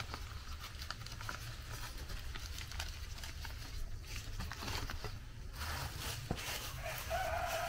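Faint crackling and rustling of a large green leaf being folded by hand into a fufu parcel. A short animal call comes near the end.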